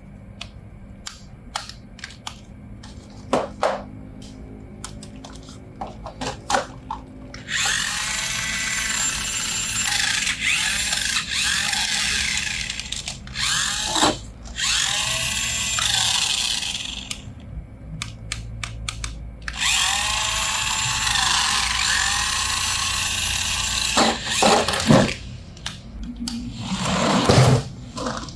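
Small electric motor and gearbox of a remote-control toy whining in three runs of several seconds, its pitch shifting as it runs. Between the runs come scattered clicks and knocks of handled plastic.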